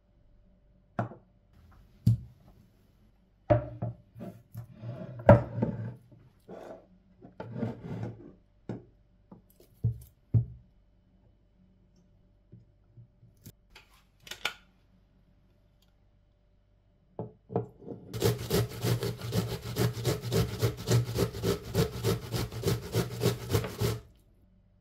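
Light knocks of things being set down and handled on a wooden cutting board. Then an onion is grated on a metal box grater: quick rasping strokes at about four a second, for some six seconds near the end.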